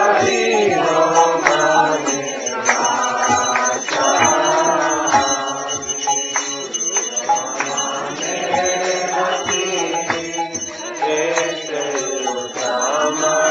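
Devotional chanting (kirtan): voices singing a mantra-like melody, with percussion striking in time.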